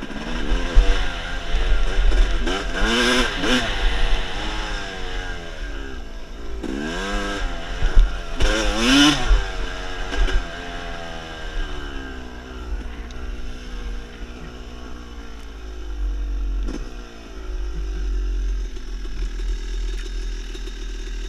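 Yamaha dirt bike engine revving up and down under the rider's throttle, with two hard revs about three and nine seconds in. Near the end it settles to a steadier, lower running. Wind rumbles on the helmet-camera microphone underneath.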